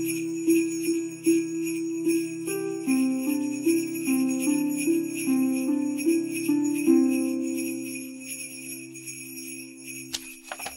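Christmas intro music: sleigh bells shaken in a steady beat over sustained low notes that step slowly through a simple tune, fading out near the end.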